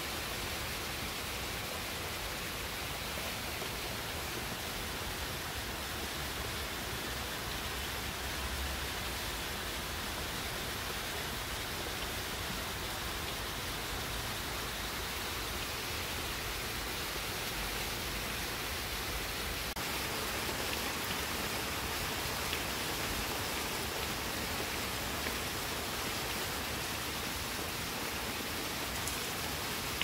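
Steady rain falling on leafy trees: an even, unbroken hiss.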